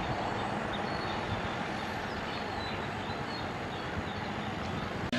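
Steady, even background noise with no distinct events, and a faint, broken high tone running through it.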